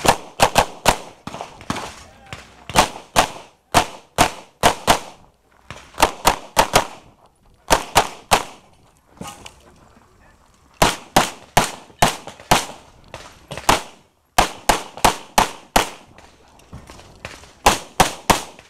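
Rapid pistol fire from a 9mm major Open-division race pistol: fast pairs and strings of shots, with short pauses between strings while the shooter moves to the next targets.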